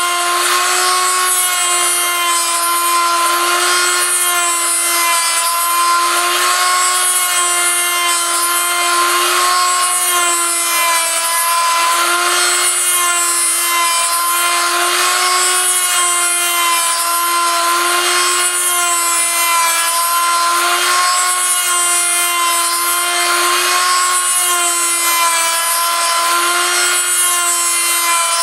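Handheld rotary tool mounted on a homemade copy milling machine, running with a steady high whine while its bit mills a turning wooden lure blank. The rasping of the cut swells and fades about every two seconds.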